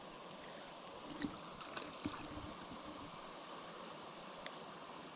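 Faint, steady rush of a flowing mountain stream, with a few soft splashes and ticks between one and two and a half seconds in, and one sharp tick later, as the brook trout is handled in a landing net.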